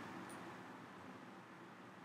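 Near silence: a faint steady hiss of room tone, with one faint short click about a third of a second in.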